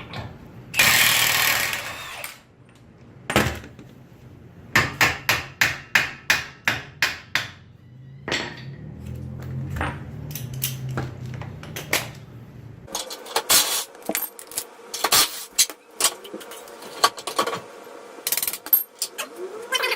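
Mechanic's tools working on a car's front suspension and axles: a short noisy burst about a second in, then a rapid run of about a dozen sharp strikes on metal, followed by scattered clanks and clicks.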